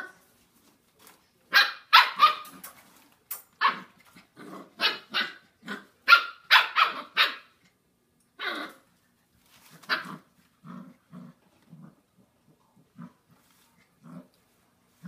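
Puppies barking and growling at each other in play: a quick run of short, high-pitched yapping barks from about a second and a half in, two more barks spaced out, then from about ten seconds on only small, low grunts and growls.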